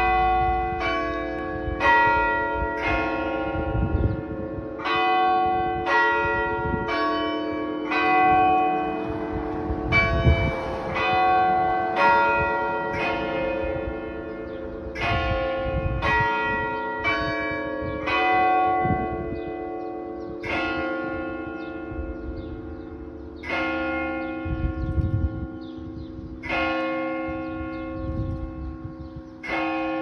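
Several church tower bells of different pitches ringing together, a strike about every second, each tone ringing on and overlapping the next.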